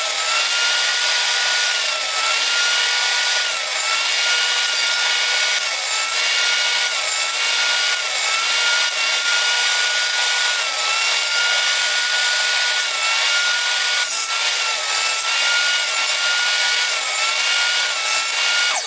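Table saw running while a plywood disc is rotated on a pivot-nail sled and fed into the blade to trim its corners round. The saw's pitch sags briefly every second or two as each cut loads the blade, then recovers.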